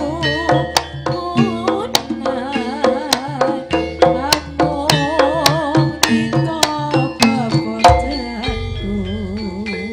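Live Javanese jaranan gamelan music: hand drums beating a quick, busy rhythm under a wavering melodic line and held metallophone tones.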